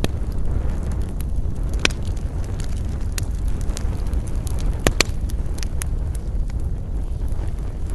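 A wood campfire crackling, with scattered sharp pops; the clearest comes about two seconds in and a quick double pop about five seconds in. Under it runs a steady low rumble of wind.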